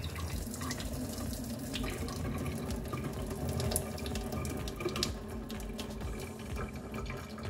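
Steady running water, as from a kitchen tap into a sink, with a few small clicks and knocks over it.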